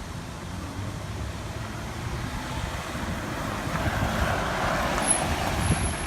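Jeep driving slowly, heard from inside the cabin: a steady low road rumble, with a hiss of wind and road noise that swells through the second half.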